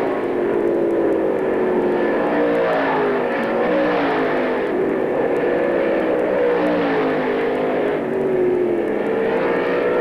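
Dirt track race car engines running hard around the oval, several at once, their pitch rising and falling as the cars accelerate and lift through the turns.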